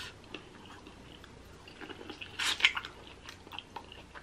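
Close-miked eating sounds: quiet chewing and wet mouth clicks, a little louder for a moment about two and a half seconds in.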